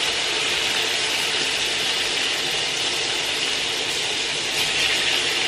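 Salmon cubes and shrimp sizzling in hot oil in two frying pans: a steady hiss.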